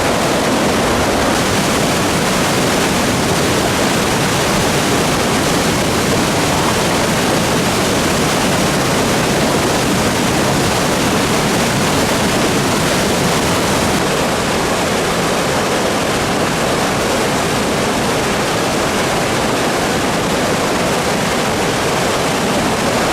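Swollen river in flood after record typhoon rain, its fast water rushing past in a loud, steady, unbroken hiss.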